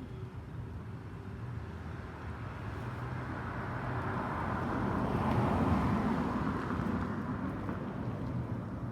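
Road traffic: a vehicle passing, its noise swelling to a peak about five and a half seconds in and then fading, over a steady low hum.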